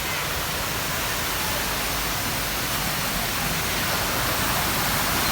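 Steady rush of water flowing down a rocky mountain stream and waterfall, getting slightly louder near the end.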